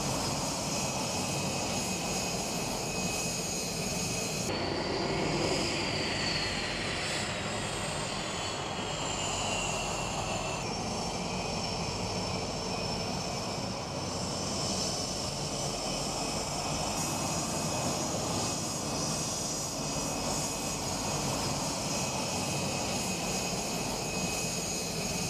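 Blue Angels F/A-18 Hornet twin jet engines running at taxi power as the jets roll past, a steady jet noise with a high whine that glides down in pitch a few seconds in.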